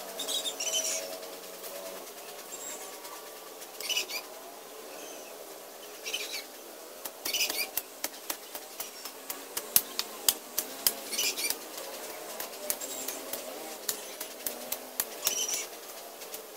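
Hoe chopping and scraping into weedy ground: a run of sharp chops, two or three a second, through the middle of the clip, with rustling swishes of torn-up grass and weeds.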